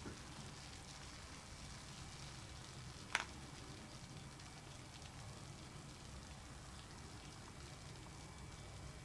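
Bath ball fizzing faintly in a basin of water: a soft, steady crackling hiss from the foam. A single brief click about three seconds in.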